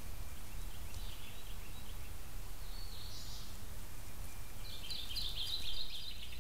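Woodland songbirds singing: a few short phrases, then a quicker run of repeated high notes near the end, over a steady low background rumble.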